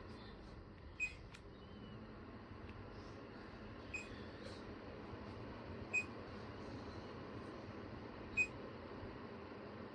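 Steady faint noise throughout, broken by four short, sharp clicks a couple of seconds apart.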